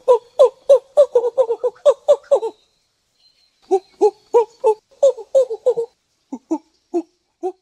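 Monkey calling in a rapid series of short pitched hoots that speed up into a quick chattering run, break off about two and a half seconds in, then start again and thin out into a few spaced calls near the end.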